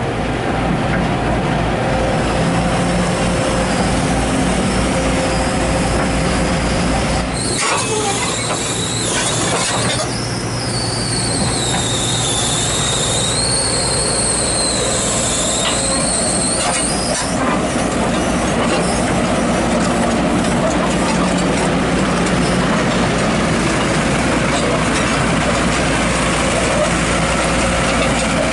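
Kobelco SK200 hydraulic excavator running close by, its diesel engine going steadily. About a third of the way in there is a noisy clatter, followed by a high, wavering metallic squeal that lasts several seconds.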